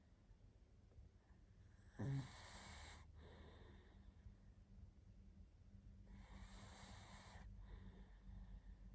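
A pug snoring in its sleep. About two seconds in comes a sudden snort with a falling pitch, followed by a softer breath. A longer, hissy breath comes about six seconds in.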